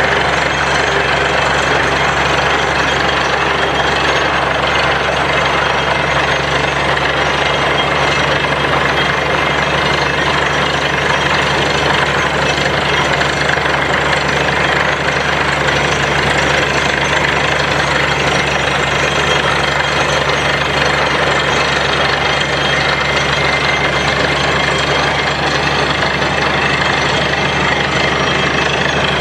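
Engine of a 10 hp borewell drilling machine running steadily with a constant low hum and a dense mechanical clatter, unchanging throughout.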